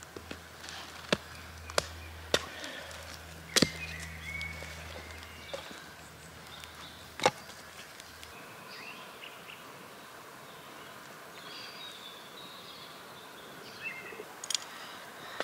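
Wood cracking and snapping at a campfire: sharp, irregular cracks, about five loud ones in the first half and a few more near the end, over a low hum that stops about eight seconds in.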